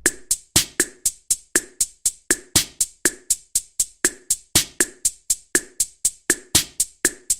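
Drum-machine beat: a steady run of sharp, dry wood-block-like clicks, about four a second, with no vocals.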